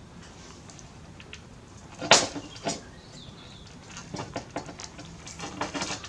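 Cheap hand crimping tool squeezing an insulated butt splice connector onto wire. There is a sharp click about two seconds in and another just after, then a run of small clicks and rattles of the tool and connector being handled.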